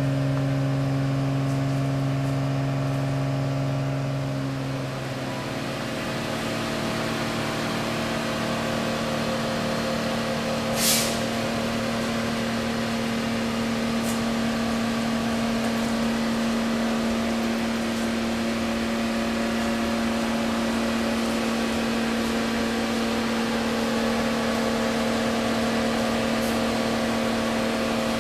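A running engine's steady drone, shifting slightly lower in pitch about five seconds in, with a short hiss about eleven seconds in.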